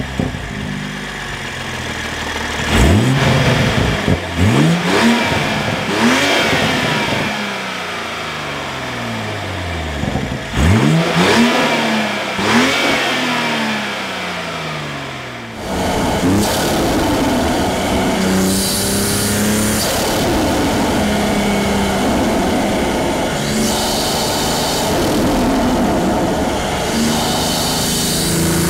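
Toyota Supra's B58 turbocharged 3.0-litre straight-six, breathing through an Armaspeed carbon-fibre intake, free-revved about six times, each blip rising sharply and falling back. After about fifteen seconds it changes to the engine running steadily under way, with short bursts of hiss every few seconds.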